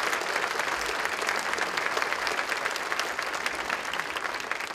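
Large audience applauding steadily, thinning out near the end.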